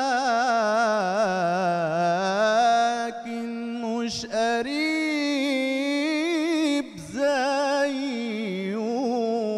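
A male mubtahil sings an Arabic religious ibtihal in praise of the Prophet Muhammad solo, with no accompaniment heard. His voice draws out long, wavering, ornamented vowels, with a few short breaks.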